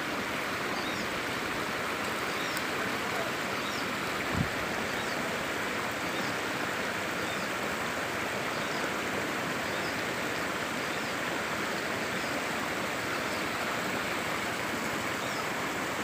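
Shallow river water running steadily over stones and gravel, with one brief low thump about four seconds in.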